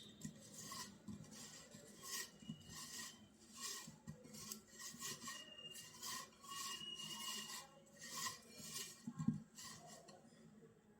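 Repeated scraping and rubbing strokes of food preparation, about one or two a second, with a duller knock near the end.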